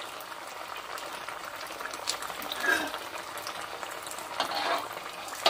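Potato-stuffed bread roll deep-frying in hot oil in a karahi: a steady bubbling sizzle with fine crackling, and a few brief louder crackles.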